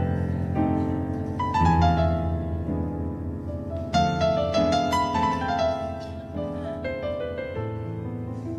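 Piano-led instrumental introduction to a song: held chords with a melody stepping downward in short phrases, with fresh louder chords struck about one and a half and four seconds in.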